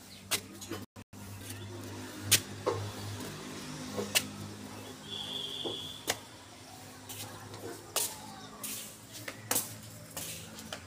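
Handling noise while a pigeon is held and turned in the hand: scattered sharp knocks and rustles, about one every second or two, over a low steady hum.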